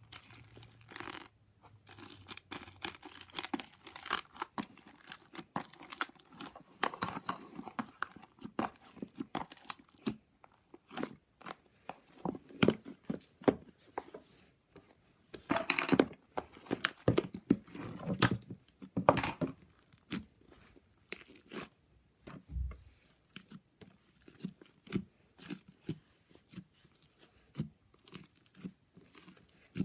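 Slime being squished, poked and stretched by hand, making irregular wet clicks, pops and crackles, with one soft low thump about two-thirds of the way through.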